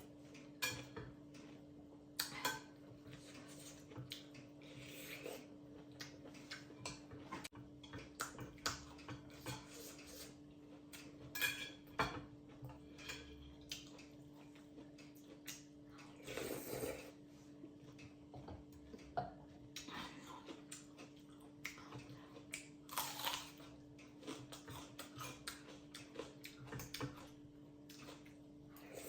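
A person eating noodles close to the microphone: short slurps, wet chewing clicks and light taps of a utensil, with a longer slurp about two-thirds of the way in. A steady low hum runs underneath.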